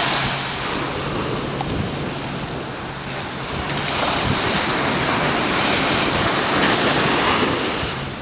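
Ocean surf breaking and washing on a beach in big waves, a steady rush that eases and then swells again about four seconds in, with wind buffeting the microphone.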